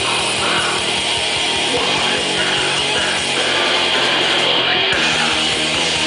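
Heavy metal band playing live, with electric guitars, bass and drums, loud and dense throughout.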